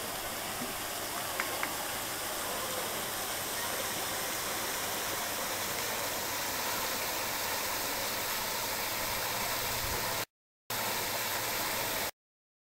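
Ornamental waterfall pouring down a stone wall into a pond, a steady rushing of water. The sound cuts out twice, briefly, near the end.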